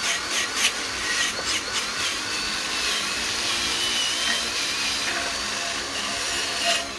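Parkside cordless power tool running a wire brush against a shock absorber body, scrubbing off old paint and rust. It is a steady scratchy whirr that cuts off suddenly near the end.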